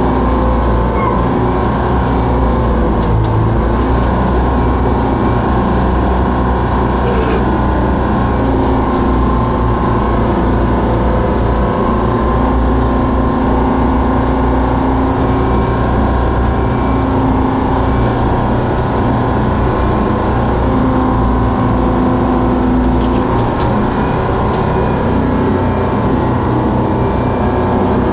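Koehring 440 dragline's engine and machinery running steadily under load, heard loud from inside the cab, while the bucket is dragged through the pit and hoisted out; the engine note shifts a few times as the load changes.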